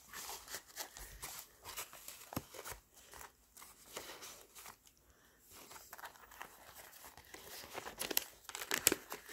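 Paper and a sheer gift bag rustling and crinkling as they are handled, with scattered small clicks, busiest and loudest near the end.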